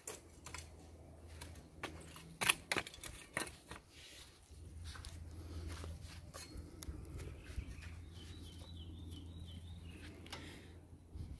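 Scattered sharp clicks and scrapes from a lawn edger's blade working into hard soil and turf at a bed edge, most of them in the first few seconds, over a low steady hum.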